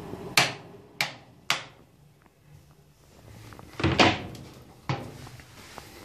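Switches on a Dimplex Lee Silver electric fire clicked three times in quick succession as the heater's fan hum dies away, switching it off. About four seconds in comes a louder knock as the hinged front cover panel over the controls is shut, followed by another click.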